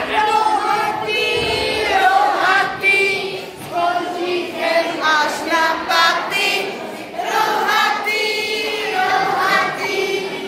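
A group of women and children singing a song together while dancing in a chain.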